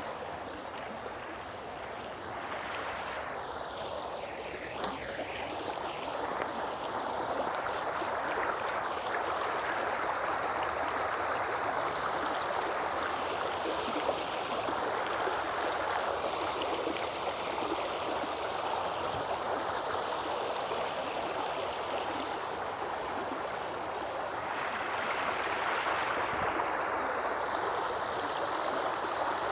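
Creek water running steadily, a continuous rushing burble.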